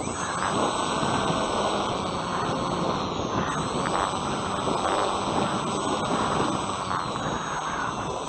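Airflow rushing over the onboard camera's microphone as a Bixler 2 foam RC plane glides low on its landing approach, with a few faint falling whines from its electric pusher motor and propeller.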